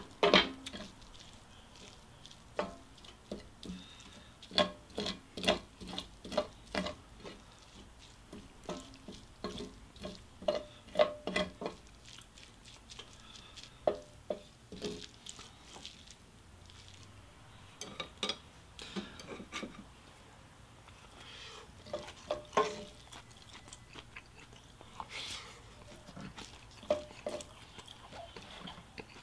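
Wooden spatula stirring and scraping kimchi fried rice with melted cheese in a cast-iron skillet: a run of short clicks and scrapes, some in quick clusters, with quieter gaps between.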